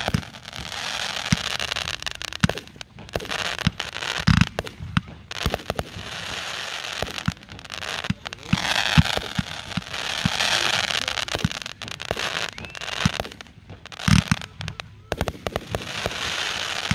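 Fireworks display: a rapid, continuous barrage of launch thumps and aerial bursts over dense crackling and hissing. Heavier booms stand out about four seconds in and again about fourteen seconds in.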